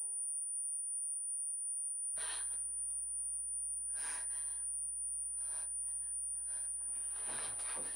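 A woman breathing audibly, a breath every one to two seconds and coming faster near the end, over a low steady hum. A piano tune stops right at the start, and there are about two seconds of silence before the hum and breathing come in.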